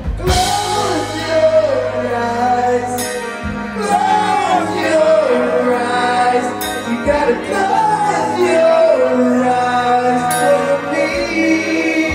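A live rock band playing a song, with a man and a woman singing over electric guitars, bass and drums, and cymbal crashes every few seconds.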